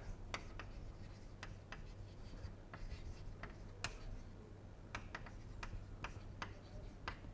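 Chalk writing on a blackboard: a run of short taps and scratches as the letters are written. A steady low hum lies under it.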